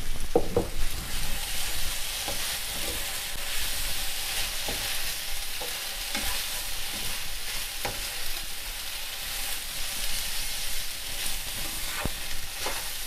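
Noodles, sausage and greens sizzling steadily in a hot non-stick frying pan while a utensil stirs and tosses them, with scattered light scrapes and taps of the utensil against the pan.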